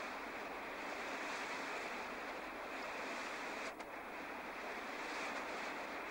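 Steady rush of a torrent of muddy floodwater, broken by a brief click and dip a little past halfway.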